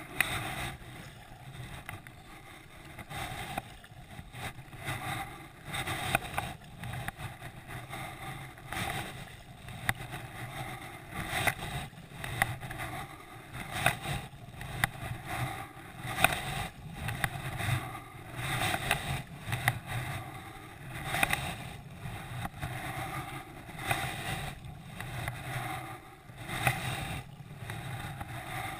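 Double-bladed kayak paddle dipping into calm water on alternating sides, with water washing along an inflatable kayak's hull, the sound swelling and easing with every stroke. It is heard dull and muffled, with little top end, through the camera's waterproof housing.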